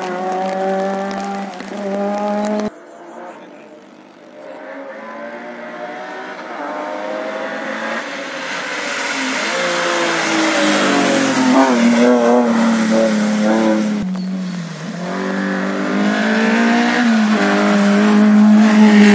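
A rally car's engine at full throttle on a wet tarmac stage. It cuts off abruptly about two and a half seconds in, then another car approaches, climbing through the gears with each rise in revs broken by a drop at the shift, lifts off briefly, and pulls hard again as it nears. Its tyres hiss on the wet road.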